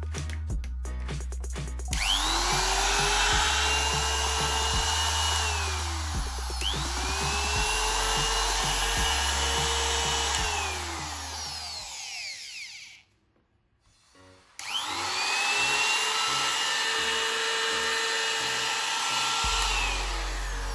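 Electric palm router (trim router) switched on three times. Each time it spins up with a rising whine, runs at a steady high pitch for about four seconds, then winds down as it is switched off. Background electronic music plays under the first two runs.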